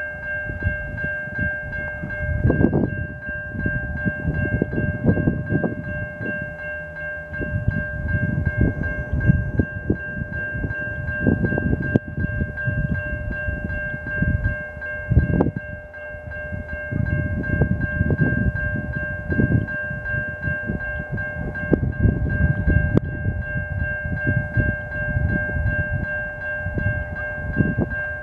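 Railway grade-crossing bell ringing steadily, a constant chiming tone held throughout. Irregular gusts of low wind noise buffet the microphone underneath it.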